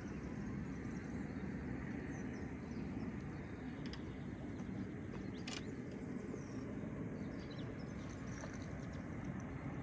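Steady low outdoor rumble with faint bird chirps and a single sharp click about five and a half seconds in.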